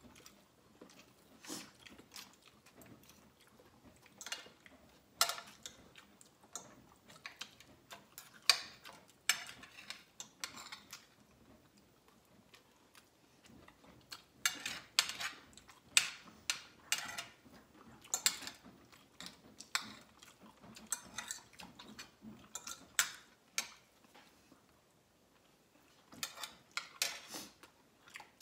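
Someone eating by hand: chewing and mouth clicks, with light taps of fingers and food on a plate, coming in irregular sharp clicks with two short pauses.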